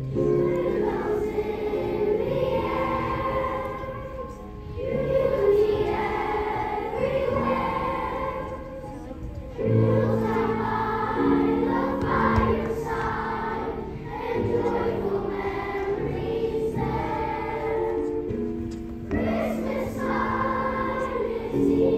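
Children's choir of fourth-graders singing a song together, phrase after phrase, with short breaks between phrases.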